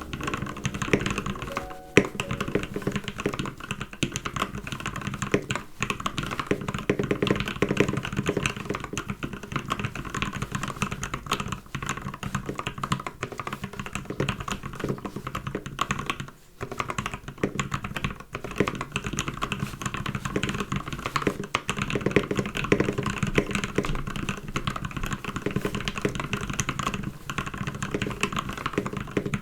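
Continuous fast typing on a custom mechanical keyboard, a CannonKeys Satisfaction 75 with lubed Alpaca linear switches and PBT keycaps. The keystrokes run densely throughout, with one brief pause about halfway through.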